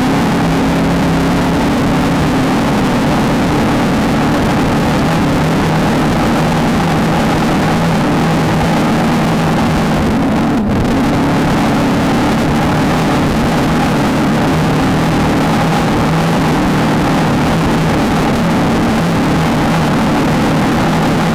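Desert off-road race car's engine running hard at a near-steady pitch under a heavy rush of wind and terrain noise, with a momentary dip about halfway through.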